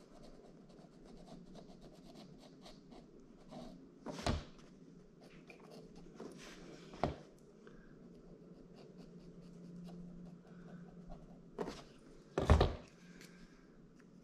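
Sharpie marker drawing a line round an aluminium trim strip, a faint scratching, with a few sharp knocks from handling the trim on the cardboard-covered bench; the loudest knock comes near the end.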